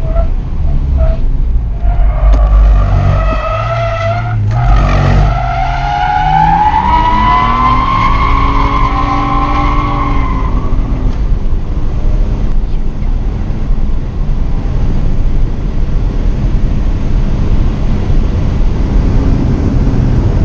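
Inside the cabin of a BMW 135i (E82) driven hard on track: the engine runs under load over road and wind noise, and from about two seconds in the tyres squeal through a long slide for some eight seconds, the squeal rising in pitch before it dies away.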